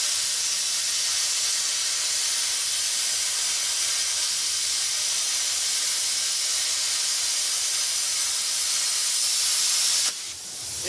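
Zeny Cut 50 air plasma cutter torch cutting through metal plate, the arc and compressed-air jet making a steady loud hiss. It stops suddenly near the end as the cut finishes.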